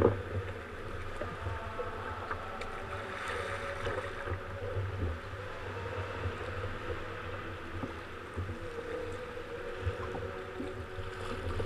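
Sea water sloshing and lapping around a sea kayak inside a sea cave, a steady wash of water noise over a low rumble, with small splashes and knocks from paddling.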